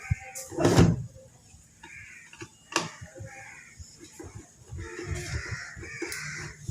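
Sharp clicks and knocks of tools and parts being handled while a home theater unit is opened up, the loudest about a second in and another near three seconds.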